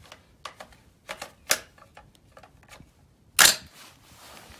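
Metallic clicks of the action of a Rock River Arms .308 AR-style rifle being handled while a round is loaded, then one loud sharp clack about three and a half seconds in as the bolt is let slam forward on the round. The bolt does not fully close into battery.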